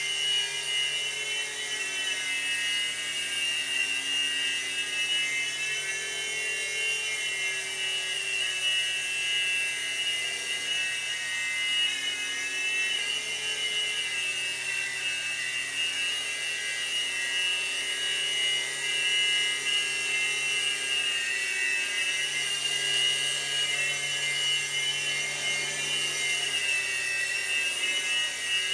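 Revell Rotobot 3-channel micro RC helicopter in flight: its small electric rotor motors give a steady high whine that wavers slightly in pitch as the throttle is worked.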